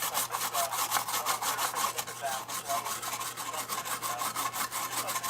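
A brush scrubbing isopropyl alcohol over a circuit board in quick back-and-forth strokes, several a second, cleaning water damage off the board.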